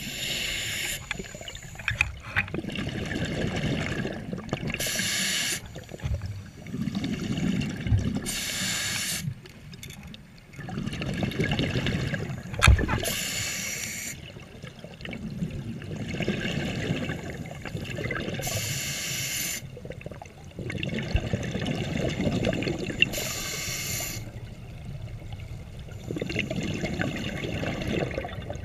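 Scuba diver breathing through a regulator underwater: a short hiss of inhalation about every four to five seconds, six times, each followed by a longer low rumble of exhaled bubbles.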